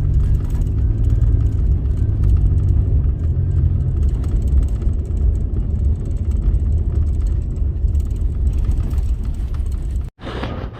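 A loud, steady low rumble, cut off abruptly about ten seconds in.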